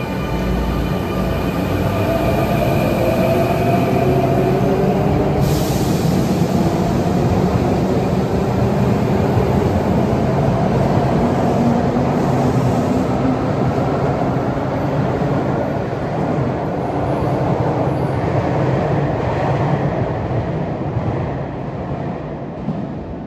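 Sotetsu 9000 series electric train departing an underground platform. Its traction motors whine, rising in pitch as it accelerates, over steady wheel-and-rail rumble, with a short hiss about five seconds in. The sound fades near the end as the last car leaves.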